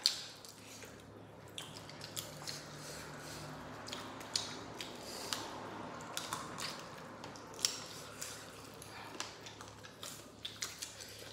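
Wet chewing and lip-smacking of people eating rice and meat curry by hand, with scattered sharp mouth clicks, over a low steady hum.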